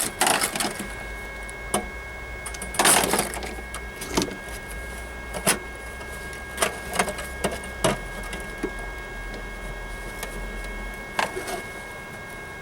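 Flux-core wire welder striking two short crackling tack welds on sheet steel, with scattered sharp clicks and knocks of metal being handled in between.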